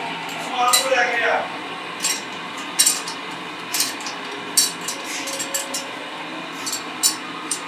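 Sharp metal clinks, irregular and about once a second, from tools and fittings around a bus tyre being turned by hand on a metal tyre spreader, over a steady low workshop hum. A brief voice sounds about a second in.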